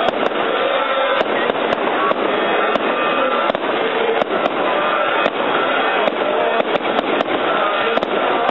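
Fireworks and firecrackers going off: a rapid, irregular string of sharp cracks, two or three a second, over a continuous dense din.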